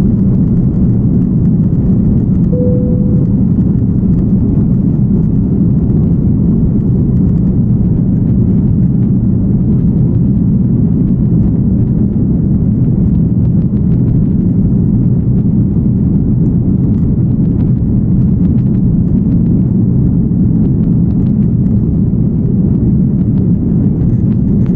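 Steady, loud cabin rumble of an airliner climbing out just after takeoff: jet engines at climb power mixed with airflow noise. A short single tone sounds about two and a half seconds in.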